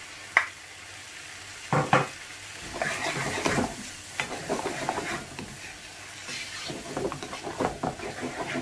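Chopped green peppers going into a non-stick frying pan of sizzling onion-tomato masala. There are a few knocks about two seconds in, then a spoon stirring and scraping through the pan while the masala fries.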